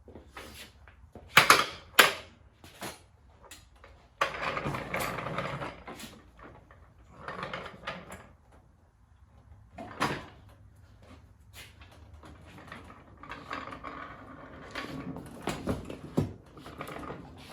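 Two sharp knocks about a second and a half in, then intermittent clatter and noisy handling sounds, with another knock near the middle.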